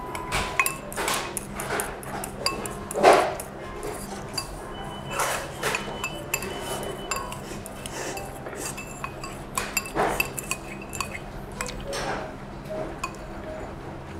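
Chopsticks and a spoon clinking and knocking on porcelain rice bowls during eating. The clinks are irregular and some ring briefly; the loudest knock comes about three seconds in, over a steady low hum.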